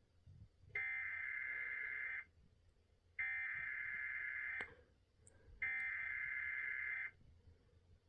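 Emergency Alert System SAME header: three bursts of buzzy digital data tones, each about a second and a half long with about a second between them. This is the coded header that opens an EAS alert broadcast.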